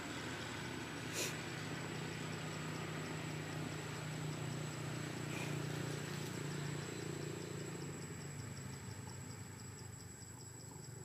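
Outdoor background of a steady low drone that swells a few seconds in and then fades, under insects chirping in fast, regular high ticks, with one short click about a second in.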